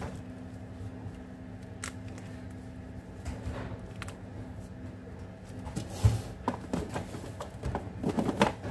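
Foil-wrapped chocolate pieces tapped and clicked into place around a tray, over a steady electrical hum. A few scattered taps at first, a thump about six seconds in, then a busier run of clicks and foil rustles near the end.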